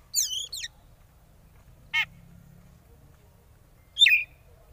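Oriental magpie-robin calling in short bursts. A quick run of high, wavering whistled notes comes at the start, then a single sharp note about two seconds in, and another brief run of falling notes near the end.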